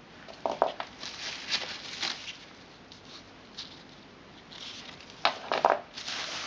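Fireworks and their packaging handled by hand, making rustling and light tapping. There are a few sharp knocks: two about half a second in, and two more about five seconds in.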